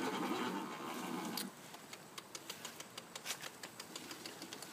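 Handling noise on a phone microphone: a steady rustling that cuts off about a second and a half in, then scattered light clicks and taps.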